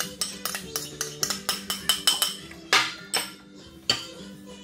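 Metal spoon scraping and tapping against a ceramic bowl as food is scraped out onto a plate: quick clinks several times a second. In the second half come a few louder clinks and scrapes of cutlery on the plate. Background music plays underneath.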